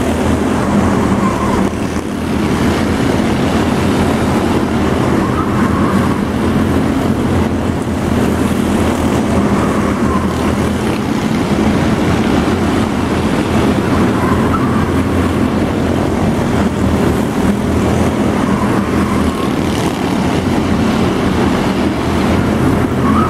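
Engines of scaled-down stock cars racing on a small indoor oval, running steadily. The sound swells each time the pack passes, about every four to five seconds.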